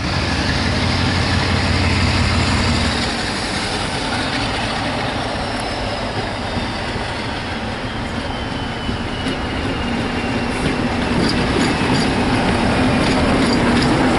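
A diesel-hauled passenger train led by a Class 47 diesel locomotive passes close by, its engine running under a steady rumble of wheels on track. A faint high whine slowly falls in pitch through the middle, and a run of light clicks comes near the end.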